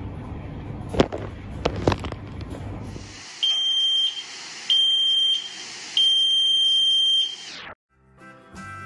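Commercial launderette tumble dryer running with clothes turning in the drum, with a couple of sharp knocks, then three shrill electronic alarm beeps over a hiss, the second and third longer than the first. Harmonica music begins near the end.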